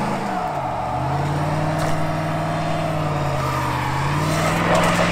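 Engine revved hard and held at high revs in a burnout, its pitch dropping briefly about half a second in and again near four seconds, then climbing back up.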